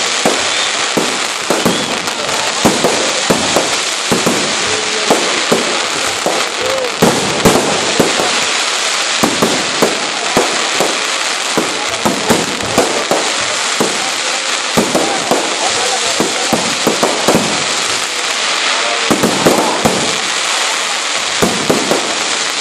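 Fireworks display: a dense, continuous hiss and crackle with many sharp bangs going off irregularly, several a second.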